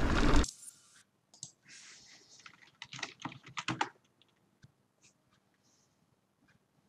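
A brief burst of noise that cuts off suddenly about half a second in, followed by a scatter of faint, quick clicks and ticks for a few seconds, then near silence.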